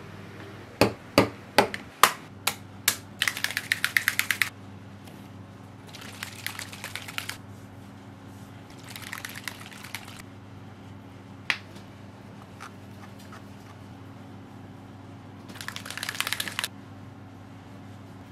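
Small hard objects handled on a wooden workbench: a quick run of sharp knocks as things are set down, then several short spells of rapid clicking and rattling, over a steady low hum.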